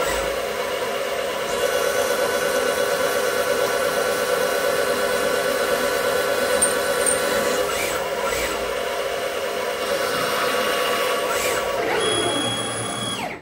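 CNC lathe spindle running with a steady motor whine while a drill bores into a spinning aluminium workpiece. Near the end the drill is withdrawn and the whine falls in pitch as the spindle slows.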